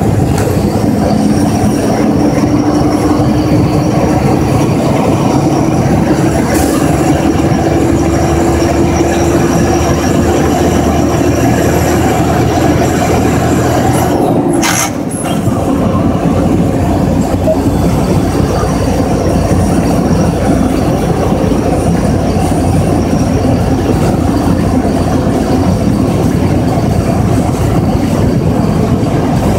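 Loud cab noise of a Mack truck's diesel engine and road rumble at highway speed. A faint engine note climbs slowly, then drops away about halfway through with a brief dip in loudness and a click, and the running noise carries on.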